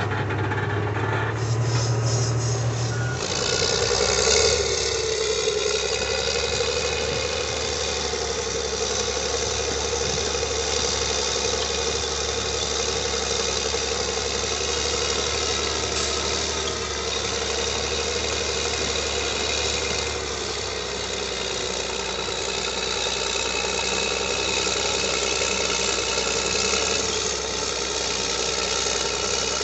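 Caterpillar 623E elevating paddle scraper's diesel engine working under load while the scraper loads dirt, running steadily. About the first three seconds hold a different, brief sound before the engine sound sets in.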